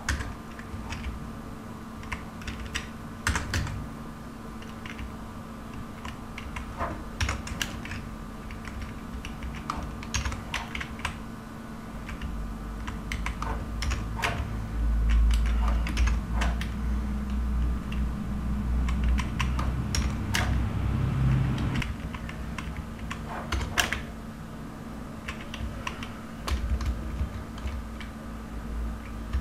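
Computer keyboard typing: scattered keystrokes and short runs of clicks over a steady low hum. A low rumble rises for several seconds around the middle.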